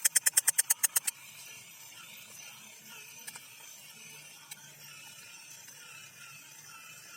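A battery-powered Spiderman toy's motor and gears clattering in a rapid, even rattle of about ten strokes a second, which stops about a second in; after that only faint background noise with a couple of small clicks.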